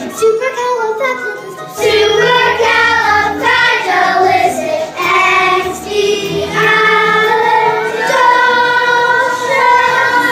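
A group of children singing a musical number together with instrumental accompaniment, the singing growing louder about two seconds in.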